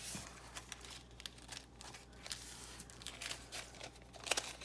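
A sheet of tracing paper being folded and creased by hand, crinkling and rustling in short irregular strokes, with a louder crackle of the stiff paper near the end.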